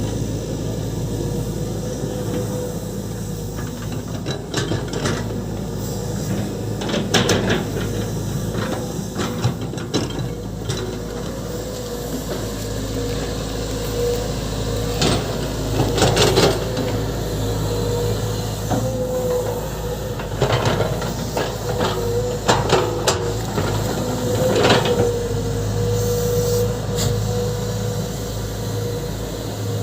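Volvo EC200D excavator's diesel engine running steadily with a constant high hydraulic whine, and scattered knocks and scrapes, most around a quarter, half and three quarters of the way through.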